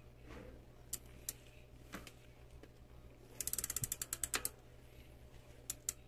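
Bicycle rear hub's ratchet pawls clicking as the cranks and chain are turned backwards to work in fresh chain oil. A few single clicks come first, then a quick run of about a dozen clicks lasting about a second, then two more near the end.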